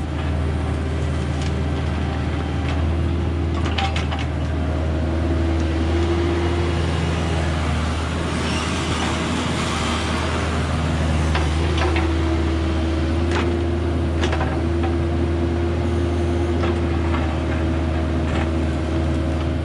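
Skid steer loader's diesel engine running steadily at working revs, with a higher steady tone that comes and goes and scattered short clanks.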